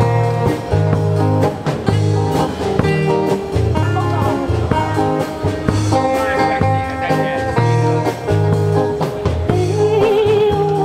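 Live band playing an instrumental break, an electric guitar carrying the melody over bass and a steady drum beat. Near the end a woman's voice comes in, singing the next line.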